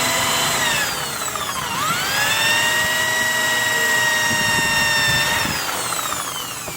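Handheld electric drill running: its motor whine drops and spins back up about two seconds in, holds steady, then winds down near the end as the trigger is released.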